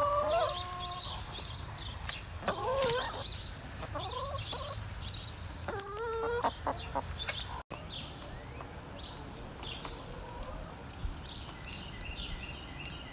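Domestic hens clucking, with several drawn-out calls in the first half. The sound drops out for a moment just past the middle, after which it is quieter, with a few faint high chirps near the end.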